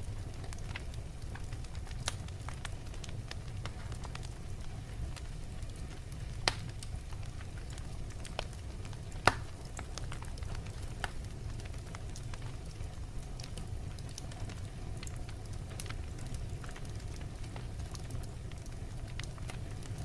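Wood fire burning in a fireplace, crackling with scattered sharp pops over a steady low rumble; one louder pop about a third of the way in and the loudest a little before the middle.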